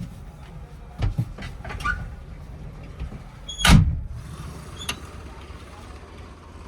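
Heavy diesel machinery running with a steady low rumble, broken by several knocks and one loud metallic bang with a brief ring about three and a half seconds in.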